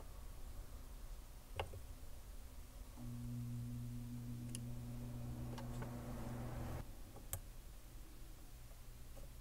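A few light clicks, and a low steady electrical hum that switches on about three seconds in and cuts off sharply about four seconds later.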